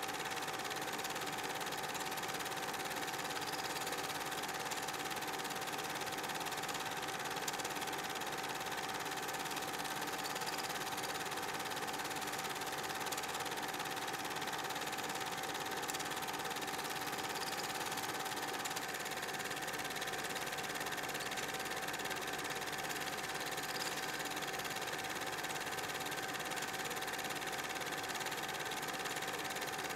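Super 8 film projector running steadily, a continuous mechanical whirr with one constant tone through it.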